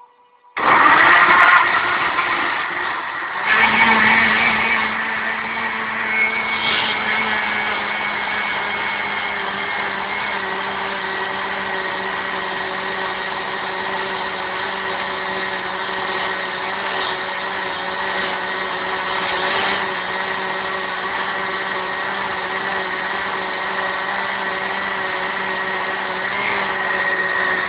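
Kitchen blender motor switched on, running with a steady whine. It starts abruptly and steps up in level about three and a half seconds in, then runs evenly.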